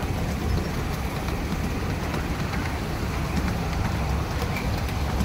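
Ride-on miniature railway train running along the track, heard from aboard the carriage: a steady low rumble from the wheels with a few faint clicks.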